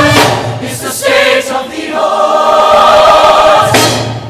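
Show choir singing in full chorus, closing on a long held chord that cuts off shortly before the end.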